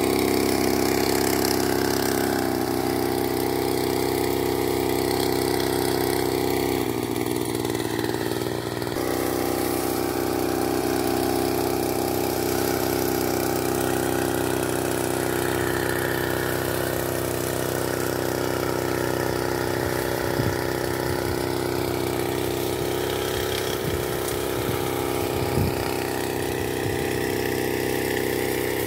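Small engine of a Tanos motorised backpack sprayer running at a steady speed while spraying herbicide through its hand lance.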